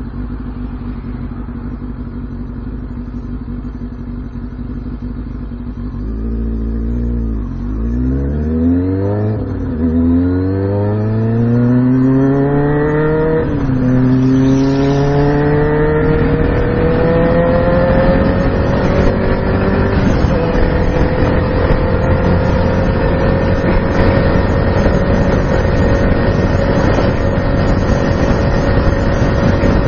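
2006 Kawasaki Ninja ZX-6R 636's inline-four engine running steadily, then about six seconds in accelerating hard through the gears, its pitch climbing and breaking at each upshift. It then settles into a steady, slowly rising note at speed, with rushing noise building under it.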